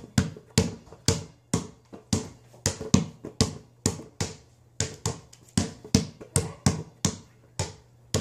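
Basketball dribbled hard on a floor: a steady run of sharp bounces, about two to three a second and a little quicker in the second half, each with a short echo.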